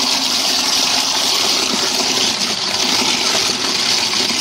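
InSinkErator food waste grinder running under an uncovered sink drain, grinding food scraps with water: a steady, loud rushing whir.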